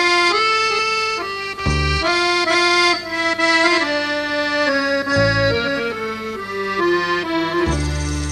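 Instrumental introduction of a Malay traditional song: a melody in held notes over a few low bass notes, before the vocals come in.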